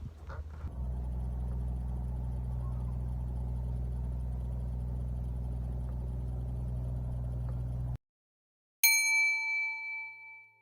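A steady low hum that cuts off abruptly, then after a short pause a single bright bell-like ding sound effect that rings out and fades.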